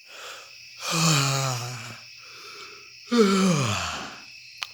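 A person's voice making two long, drawn-out sleepy groans without words, the second sliding down in pitch: someone being woken from sleep.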